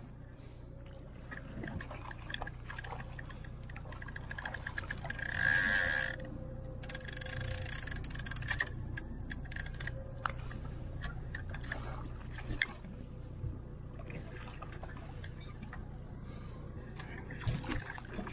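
Hooked fish thrashing and splashing at the surface beside a trolling boat, with the boat's motor running steadily underneath. There are scattered sharp clicks and two louder bursts of rushing noise about five to eight seconds in.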